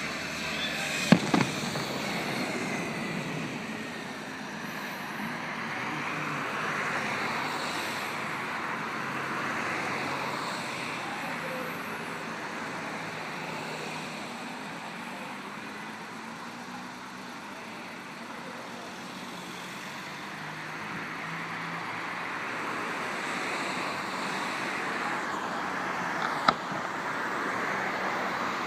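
Steady outdoor crowd murmur mixed with a background hum like distant traffic, broken by single sharp cracks about a second in and again near the end.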